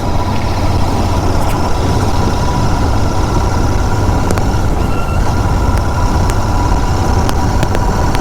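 Royal Enfield Continental GT 650's parallel-twin engine and exhaust running at a steady, even pace while the motorcycle is ridden along, a continuous low rumble.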